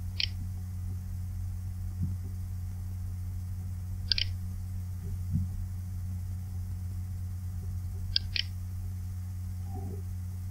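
Steady low electrical hum, with a short high tick about every four seconds and a double tick near the end.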